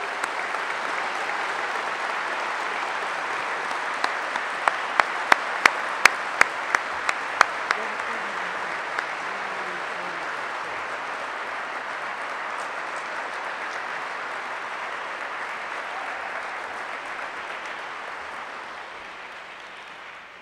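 Audience applauding, the applause fading away near the end. About four seconds in, one person close to the microphone claps loudly and sharply, about three claps a second, for some four seconds.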